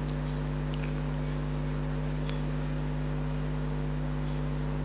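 A steady low mechanical hum over a faint even hiss, with a few faint light clicks.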